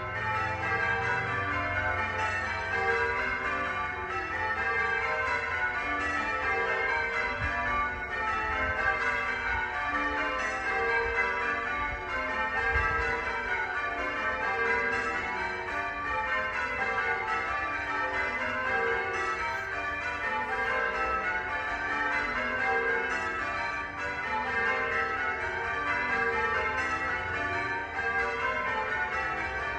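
A peal of several church bells ringing without pause, their strikes following one another in quick, repeating sequences. A low rumble sits underneath.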